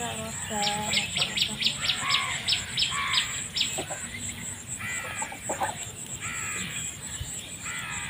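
Domestic geese calling in a flock: a few low nasal honks, then a fast run of short, high calls at about four or five a second for some three seconds, and more scattered calls later.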